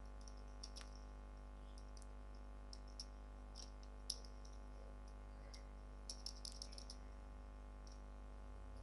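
Scattered keystrokes on a computer keyboard, a few single taps and then a quick run of keys about six seconds in, over a faint steady electrical hum.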